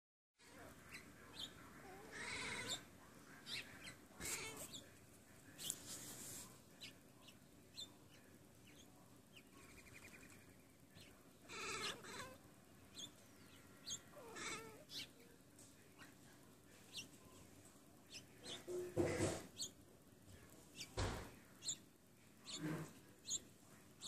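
Seal point Siamese kitten calling at birds outside the window: short meows and chirps, about five calls spread out with pauses between them.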